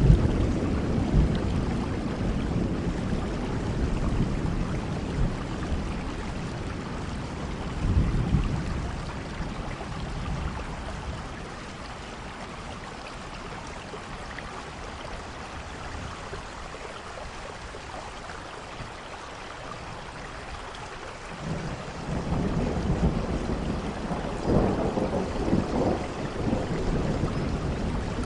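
Steady rain with thunder rumbling. A rumble dies away at the start, a short one comes about eight seconds in, and a long one builds up near the end after a quieter stretch.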